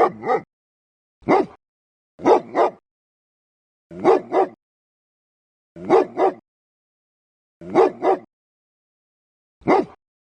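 A dog barking in quick volleys of two or three barks, one volley every one and a half to two seconds, with complete silence between them.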